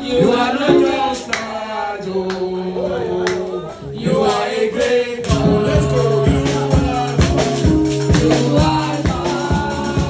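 Congregational gospel praise singing, with a lead voice and the congregation singing together. About halfway through, a held bass note and a steady drum beat come in under the singing.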